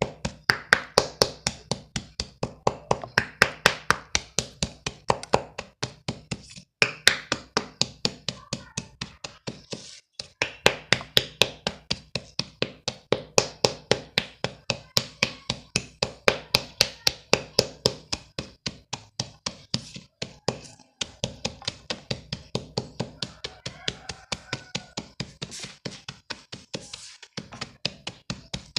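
Chalk crumbles being crushed, crunching sharply about four times a second with a few short pauses.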